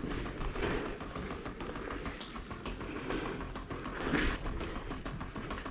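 Careful footsteps scuffing and crunching on a gritty concrete floor, a string of small, irregular clicks and scrapes.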